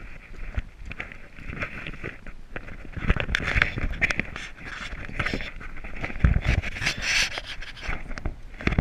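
Handling noise on a collar-mounted GoPro camera: rubbing, scraping and knocking as a hand grips and adjusts it, louder in the second half with a heavy thump near the end.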